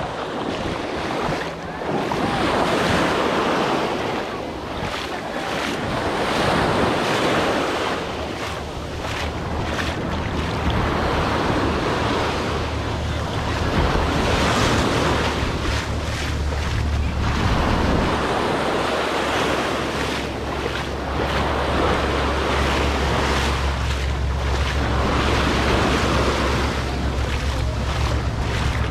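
Ocean surf breaking and washing up on a beach, swelling and fading every few seconds, with wind rumbling on the microphone that gets stronger about halfway through.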